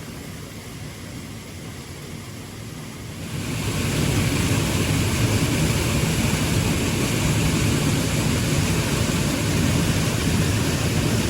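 A faint hiss, then about three and a half seconds in a loud, steady rushing noise comes in and holds, heaviest in the low range.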